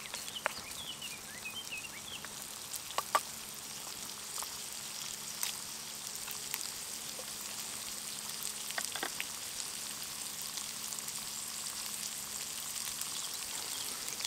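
Chopped bacon sizzling in the small non-stick frying pan of a Trangia Mini alcohol stove: a steady, even frying sizzle broken by a few sharp clicks.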